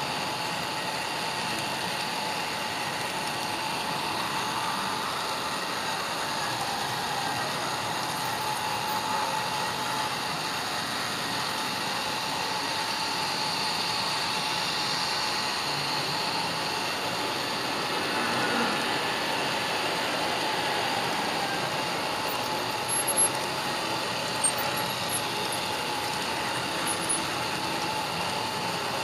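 Steady running noise of a model train's small electric motor and its wheels rolling on the track, with a few sharp clicks in the last few seconds.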